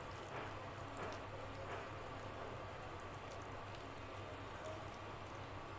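Fingers mixing and mashing rice with runny dal and mashed potato on a steel plate: soft wet squelching with scattered small clicks.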